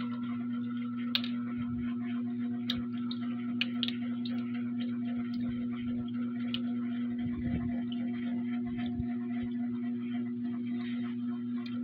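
A steady low hum, with a metal spoon clinking and scraping against a bowl of tteokbokki now and then as it stirs and scoops the rice cakes.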